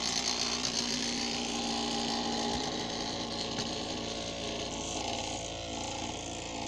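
Homemade three-phase brushless DC motor running steadily, spinning a small propeller that pushes a toy air boat.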